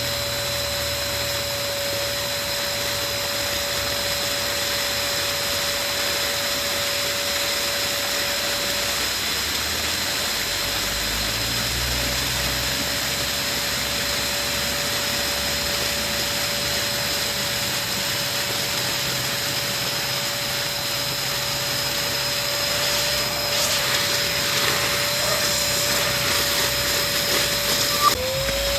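Electric balloon pump running steadily with a constant whine, blowing air into a balloon. Near the end a brief click comes, and the whine dips in pitch for a moment and then recovers.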